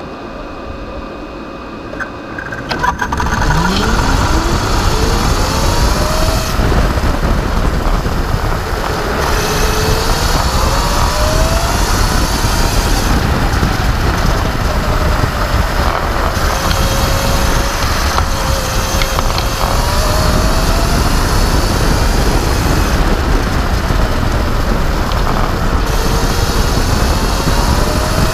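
Electric racing kart's motor whine, rising in pitch as the kart pulls away about three seconds in, then rising and falling with speed, over loud wind and road rumble.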